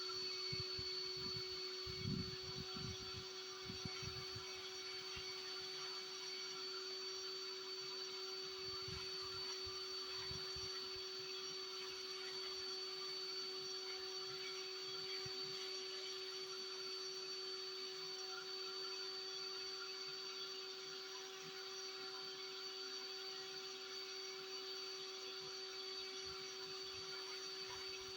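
Vacuum cleaner running steadily, its motor whine and rushing air blowing out through the hose to push snow away. A few low bumps and buffets come in the first seconds and again about ten seconds in.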